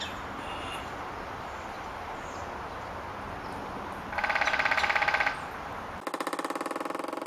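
Woodpecker drumming: about four seconds in, a rapid, even roll of strikes lasting about a second, roughly fifteen blows a second, over steady outdoor background hiss. A second fast roll follows near the end.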